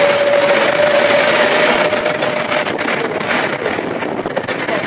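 Freight train of empty container flat wagons rolling past close by, wheels clattering and the empty wagons rattling continuously. A steady high whine fades away about three seconds in.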